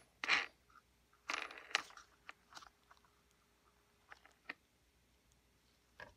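A gloved hand working the nut and washer off the impeller shaft of a Stihl SH86C shredder vac: short scrapes and clicks, thickest in the first two seconds, then a few light ticks.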